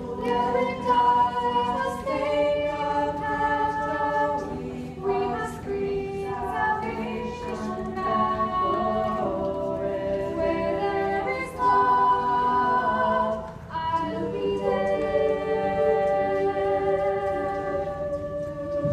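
High school a cappella choir singing in close harmony, voices only, holding sustained chords that shift every second or two, with a brief break about two-thirds of the way through.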